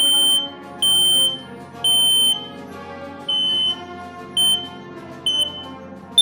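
Smoke alarm beeping at a high pitch: six loud beeps roughly a second apart, the first three longer than the rest, then a short sharp chirp near the end, over background music.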